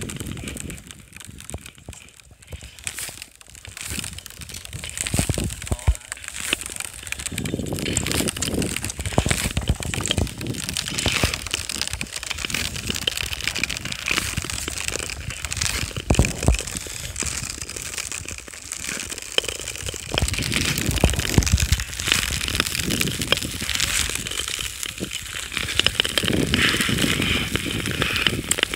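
Ice skates scraping and gliding over natural ice, with dense crackling and crunching from the blades. It is quieter for the first few seconds and steadier from about seven seconds in.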